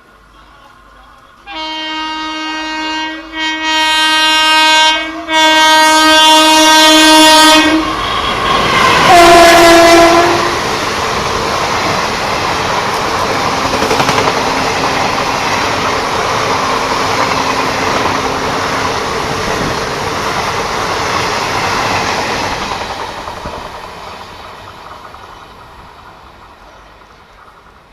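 WAP-4 electric locomotive hauling an express train past, sounding its horn in three long blasts that grow louder, then one shorter blast. The rumble and clatter of the passing coaches follow, fading away over the last few seconds.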